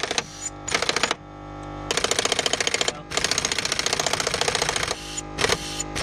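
Pneumatic impact wrench hammering on a rusted 18 mm shock absorber bolt to loosen it, in several bursts, the longest about two seconds. A steady hum runs underneath between the bursts.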